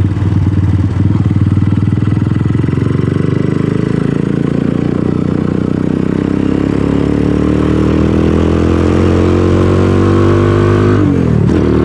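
Venom X22R 250 motorcycle's single-cylinder engine under way, the revs climbing steadily through a gear in the second half, then dropping briefly near the end for a gear change before pulling up again.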